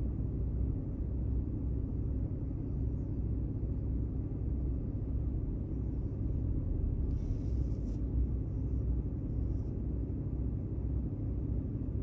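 Steady low rumble heard inside the cabin of a car standing still at a traffic light, its engine idling. A brief hiss comes about seven seconds in.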